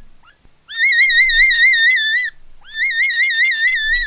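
A high, wavering whistle-like tone that trills about six times a second. It comes in two identical phrases, each opening with a quick upward swoop and lasting about a second and a half.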